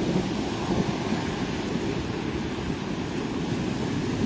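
Flash floodwater rushing across a road, a steady rushing noise, with wind buffeting the microphone.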